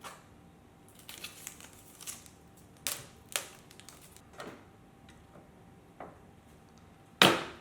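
Irregular handling clicks and knocks, as of objects being picked up and set down, with the loudest knock near the end.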